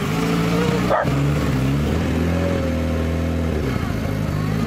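Vintage car engine running at low revs, its note shifting a couple of times, with a short sharp break about a second in.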